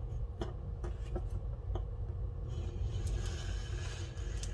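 X-Acto knife blade drawn across paper to cut it: a few light ticks, then a scratchy scraping from about halfway through, over a low steady hum.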